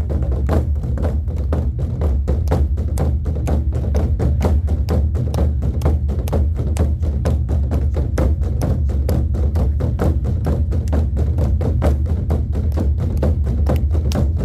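Korean buk drums played by an ensemble in a fast, even beat of about four strikes a second over a deep, steady low rumble. The rhythm imitates horses galloping in a war-drum piece.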